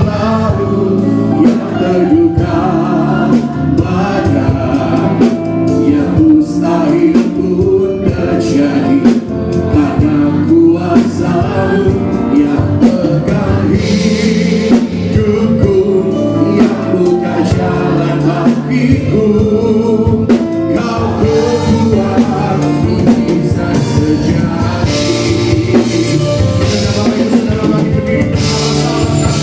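Christian worship song: a singer over a band with a drum kit, playing steadily throughout.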